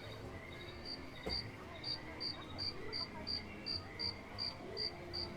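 Crickets chirping: a steady high trill, then from about a second in regular chirps about three a second, over a low background hum.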